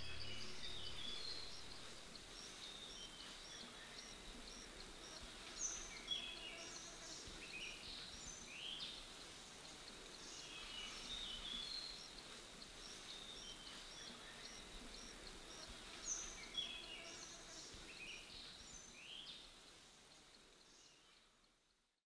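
Forest ambience: assorted bird chirps and short calls over a thin, steady high whine, with a couple of sharper louder calls. It is faint throughout and fades out to silence near the end.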